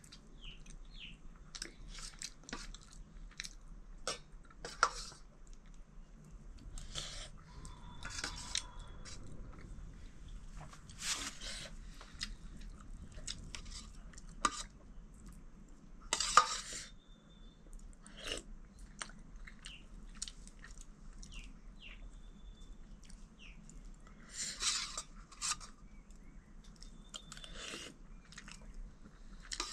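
Someone eating: chewing and mouth sounds, with irregular short clicks and scrapes of dishes. The loudest clicks come about 5 seconds in, at about 16 seconds, and at about 25 seconds.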